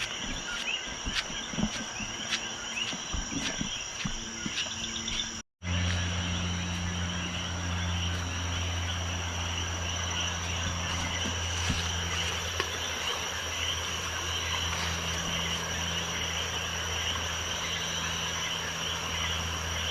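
Night chorus of frogs and insects, a steady high-pitched calling. About five seconds in the audio cuts out briefly, and after that a steady low hum runs under the chorus.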